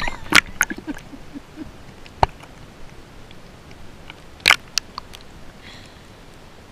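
Small splashes of lake water against a camera held at the water's surface: a few irregular sharp splats and clicks, the loudest about half a second and about four and a half seconds in, over a faint hiss.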